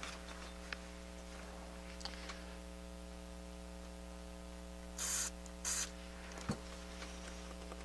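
Two short hisses from an aerosol spray cleaner can, about half a second apart, sprayed onto a small switch being cleaned. A steady electrical hum lies underneath, and a small click follows about a second later.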